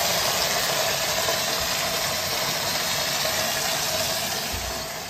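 Water heater drain water jetting from a hose at full flow and splashing onto gravel and vinyl siding: a steady rushing, spattering noise that eases a little near the end. The tank is being flushed of sediment.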